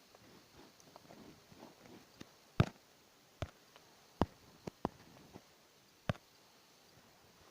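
Scattered sharp clicks and knocks, about seven of them, with faint rustling between; the loudest comes about a third of the way in, and several follow in quick succession near the middle.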